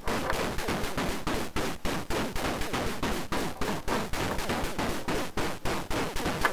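DIY XORbell metallic noise percussion module (40106 oscillators through 4070 XOR gates) sounding a fast, even stream of noisy metallic hits, about three a second, while its knobs are turned by hand.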